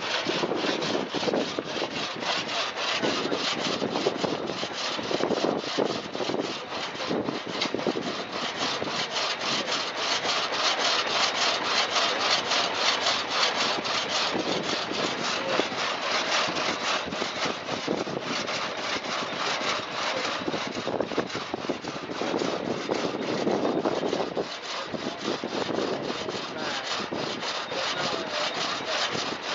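Antique drag saw, a long reciprocating crosscut blade, sawing through a log with rapid, even back-and-forth rasping strokes.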